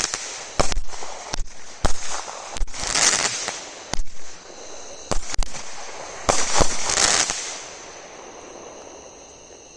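200-gram consumer firework cake firing a string of aerial shots: sharp bangs every half-second to second with bursts of crackle, dying out about eight seconds in.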